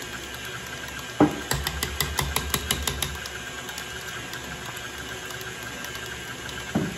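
KitchenAid stand mixer running steadily, its wire whisk beating ermine frosting in the steel bowl. About a second in there is a sharp knock, then a quick run of clicks for about two seconds, and another knock near the end.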